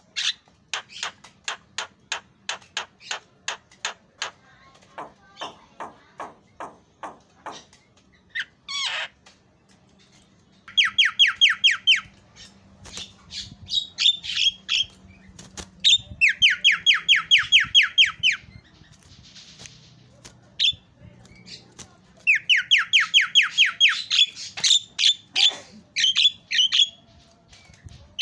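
Javan myna singing a varied mimicking song. It opens with a run of quick clicks that slows down, gives a falling whistle, then three bursts of fast, even rattling trills mixed with chattering notes.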